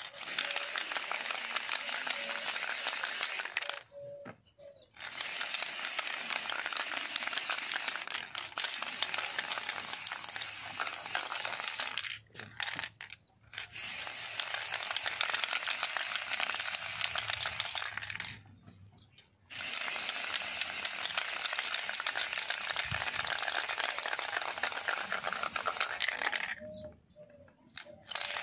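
Aerosol spray-paint can hissing as black paint is sprayed onto a volleyball, in long bursts of several seconds with short breaks between.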